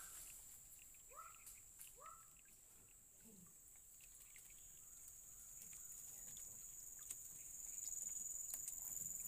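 Faint forest ambience: a steady high-pitched hum that grows louder over the last few seconds, with three short rising animal calls in the first two seconds.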